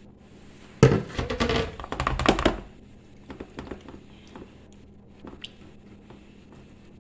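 Marinated chicken pieces being put into the baking dish: a sudden thunk about a second in, then about two seconds of clattering, handling noise, followed by a few light taps.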